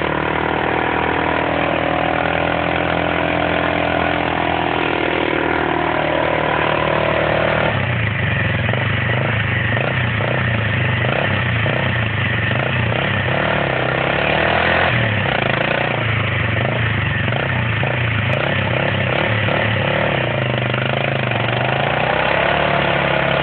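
Honda XL600 motorcycle engine running at steady revs while its knobby rear tyre spins on grass and digs into the turf. About eight seconds in its note drops and turns pulsing.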